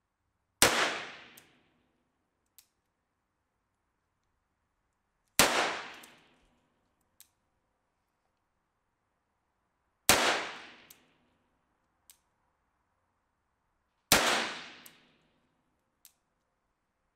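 Webley & Scott Mk IV revolver firing four single .38 Smith & Wesson shots, a few seconds apart. Each report echoes for about a second, and a faint click follows each shot.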